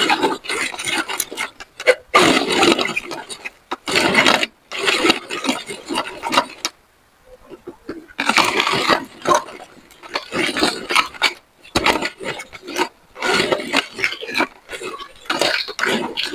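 Meat grinder crunching and grinding up a bell pepper in irregular bursts, with a short pause about seven seconds in.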